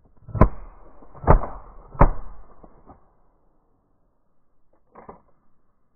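Three shotgun shots in quick succession, each roughly a second apart with a short fading tail, followed near the end by a brief faint sound.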